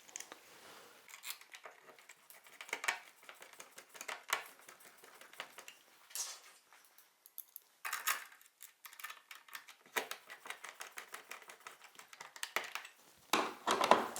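Irregular light metallic clicks, taps and scrapes as wires are folded and a single-pole light switch is pushed and fitted into its electrical box, with a few louder clusters of handling noise.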